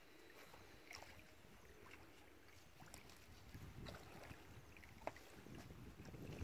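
Near silence: faint outdoor ambience with a few light clicks and a low rumble that grows about halfway through.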